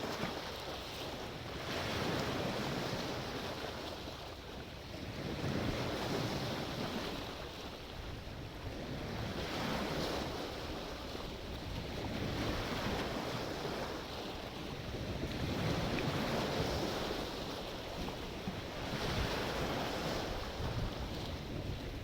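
Sea waves washing in, the surf swelling and fading about every three to four seconds.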